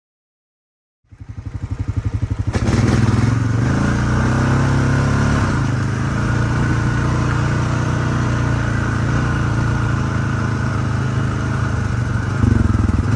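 After about a second of silence, an ATV engine starts sounding close by, building up over the next couple of seconds and then running steadily as the quad is ridden through tall grass.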